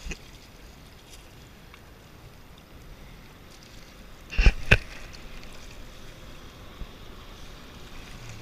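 Water lapping and wind around a jet ski floating with no engine heard, as a man in the water hauls himself onto its stern; about four and a half seconds in, two sharp thumps come close together, the loudest sounds.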